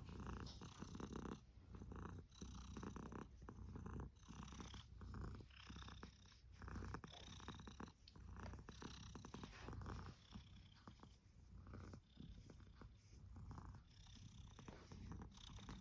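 Domestic cat purring softly and steadily. The purr pauses briefly at each breath, about every two seconds.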